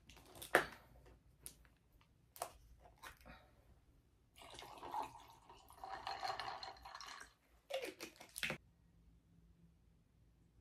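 A plastic bottle cap is twisted open with a few small clicks, then red drink is poured from the plastic bottle into a glass of ice for about three seconds. A couple of knocks near the end as the bottle is set down on the table.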